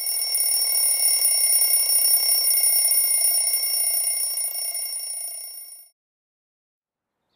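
A loud, steady high-pitched ringing made of several held tones over a fainter hiss, fading and cutting off about six seconds in.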